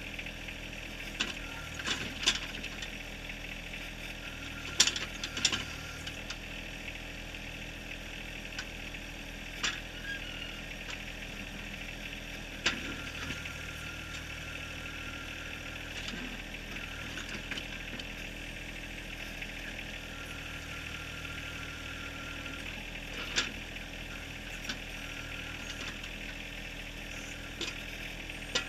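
John Deere 1023R compact tractor's three-cylinder diesel engine running steadily while it works the backhoe. A sharp clank comes every few seconds from the steel bucket striking rocks and bedrock, loudest about five seconds in and again about twelve seconds in.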